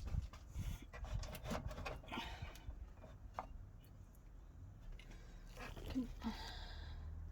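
Irregular knocks, clicks and scraping rubs as a car radiator and its plastic fan shroud are worked loose by hand in the engine bay, easing the shroud out of its retaining clips.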